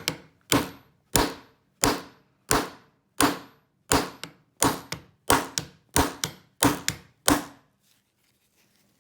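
Steady run of about a dozen sharp whacks, roughly one every two-thirds of a second, each with a brief metallic ring, as a tool is struck to wedge open a plastic Federal PL90PE lockout padlock body. The blows stop shortly before the end.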